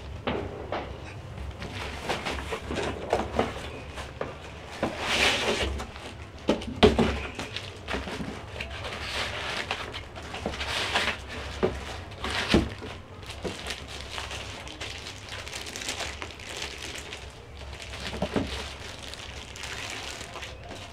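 Packaging being handled: rustling, scraping and scattered knocks as dark foam packing inserts are lifted out of a cardboard box and the box is moved about.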